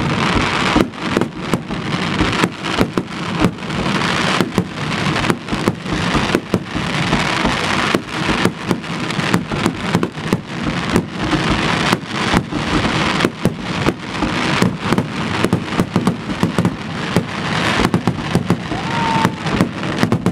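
Aerial firework shells bursting in a dense, unbroken barrage: sharp bangs two or three a second over a continuous wash of rumble and crackle.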